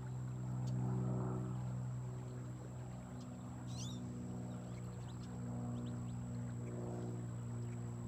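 Steady low hum of a motor running, swelling slightly in loudness about a second in, with a short high bird chirp near the middle.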